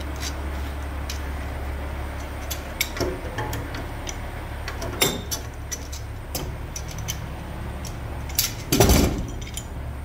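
Steel pipe wrenches clinking and clanking as they are picked up and handled, a few scattered knocks with a heavier clank near the end, over a steady low hum.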